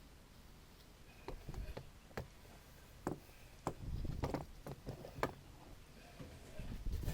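Scattered light clicks and knocks of hand tools and metal parts being handled while an old garbage disposal is taken apart, coming more thickly for a second or so past the middle.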